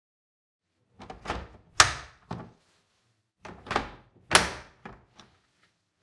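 Two Dyson vacuum attachment tools pushed one after the other onto the plastic tool holders of a wall-mounted docking station. Each gives a short run of plastic knocks and clicks: the sharpest about two seconds in, the next just past four seconds.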